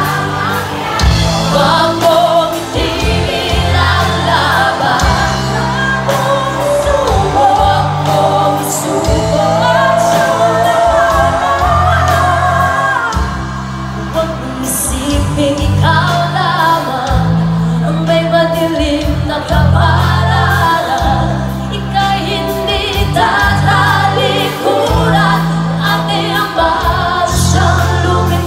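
Live band playing with female vocals sung into microphones over electric guitars, drums and keyboard, with a strong bass line that changes note every second or two.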